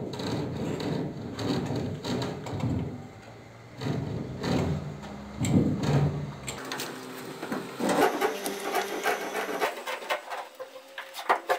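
A metal ruler and marking tool rubbing and scraping against a gypsum plaster ceiling as lines are marked out. Short clicks and taps of handling come thicker in the second half.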